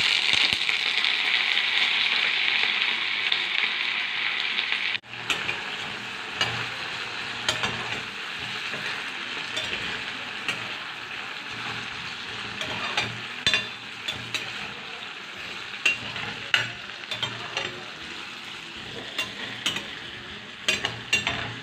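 Diced potatoes and carrots sizzling in hot butter in a glass frying pan, loudest just after they go in and then a lower, steady sizzle. A spoon stirring them clicks and scrapes against the pan throughout.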